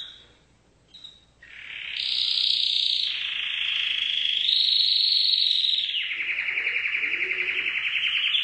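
Domestic canary singing a long, unbroken song after a couple of short chirps, turning into a fast, rolling trill in the second half.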